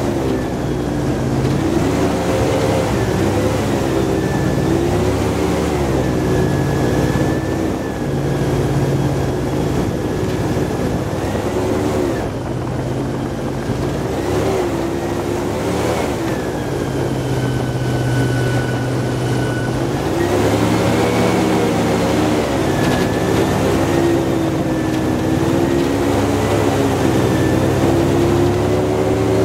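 Airboat engine and propeller running loud and steady, its pitch rising and falling as the engine speed changes.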